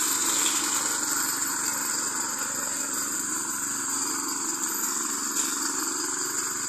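Small petrol engine of a walk-behind brush cutter running steadily as it is pushed through dense undergrowth full of saplings. It grows a little fainter as the machine moves away.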